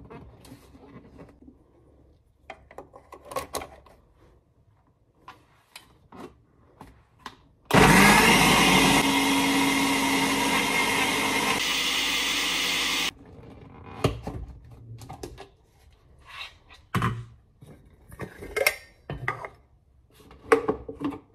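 Blender running for about five seconds as a smoothie is made, starting suddenly at full loudness and cutting off abruptly. Before and after it there are scattered light clicks and knocks.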